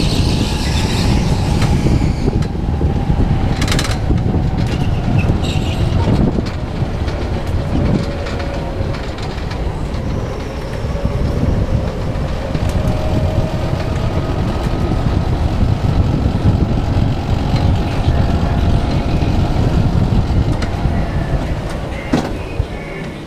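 Go-kart running at speed, heard from on board: a steady heavy rumble of the kart and its tyres on the concrete track, with a faint whine that falls slowly in pitch and then rises again. It gets quieter near the end.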